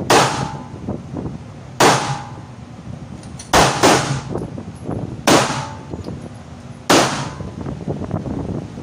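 Handgun fired six times in an indoor range, each shot a sharp crack with an echoing tail. The shots come roughly every second and a half, with a quick double shot near the middle.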